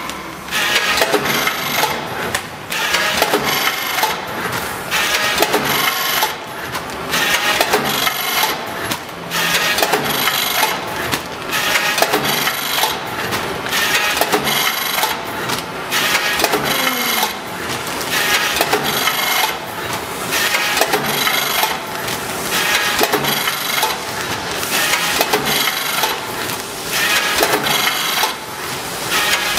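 Vertical form-fill-seal powder packing machine with an auger filler running. It makes a loud scraping, clattering mechanical noise that swells and dips in a steady cycle about every two to three seconds.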